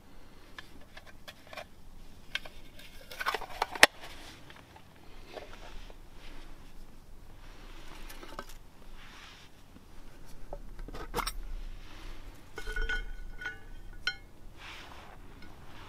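A small round metal tin and a metal case being handled: clicks and clinks of metal lids and contents, soft rustling, a sharp click about four seconds in, and a run of clinks with a short ring near the end.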